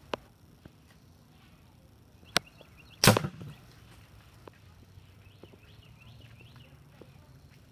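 Bear River Sportsman 900 air rifle fired once, about three seconds in: a single sharp report with a short tail. A thinner sharp click comes just over half a second before it.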